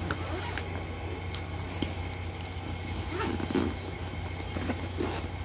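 Zipper on a fabric bag being pulled closed in short scraping pulls, with the bag handled between them, over a steady low hum.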